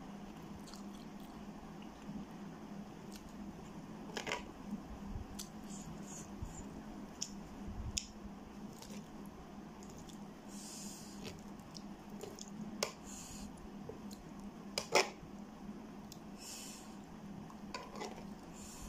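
Metal spoon clinking and scraping on a tray as it cuts through fried eggs and instant noodles, with soft wet eating sounds between. Scattered sharp clicks, the loudest about fifteen seconds in.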